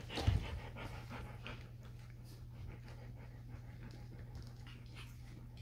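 Four-week-old Rhodesian Ridgeback puppies panting quietly as they play, with a brief louder sound just after the start and a few soft clicks. A low steady hum runs underneath.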